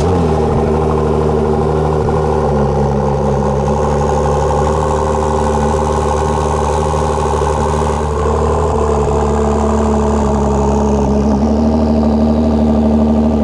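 A supercar's engine idling steadily and loudly, just after starting up.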